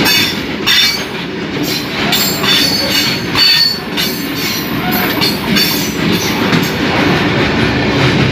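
Freight train's goods wagons rushing past at speed, a continuous rumble with rapid, irregular metallic clatter from the wheels on the rails. The noise eases slightly near the end as the last wagon goes by.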